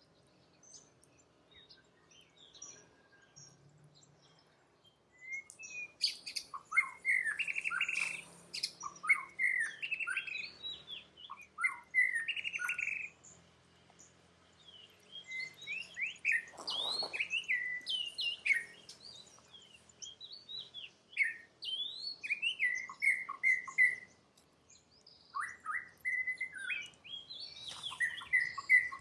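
Bouts of short, high-pitched chirping calls, each dropping quickly in pitch, starting about five seconds in and coming in runs with short pauses.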